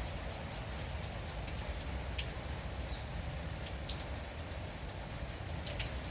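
Steady rain falling, with scattered sharp drop ticks on a surface over a continuous hiss and a low rumble underneath.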